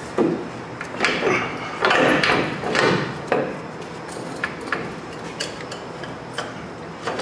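Metal clunks and scrapes as a coilover strut is manoeuvred by hand into the front shock tower and lower mount of a pickup's suspension. There is a string of knocks over the first three or four seconds, then lighter ticks and taps.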